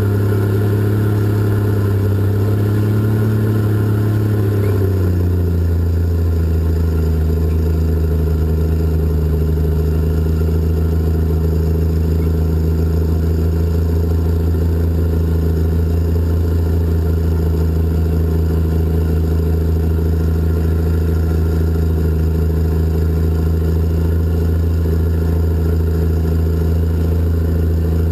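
Cat 627 scraper's diesel engine running loud, heard from the operator's cab. Its pitch lifts a little about three seconds in, drops about five seconds in, and then holds steady at the lower speed.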